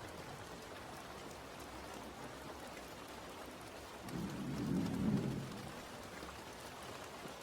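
Steady rain falling, with a low rumble of thunder about four seconds in that swells for a second or so and fades.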